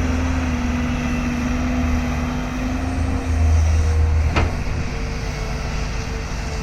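Tata Hitachi excavator's diesel engine running under work, a steady hum whose tone shifts a little past halfway as the low rumble swells, followed by a single sharp knock.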